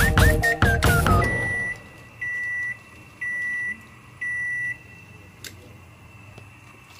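Background music with whistle-like gliding notes ends about a second in, followed by four electronic beeps at one high pitch, about half a second each and a second apart, and then a single faint click.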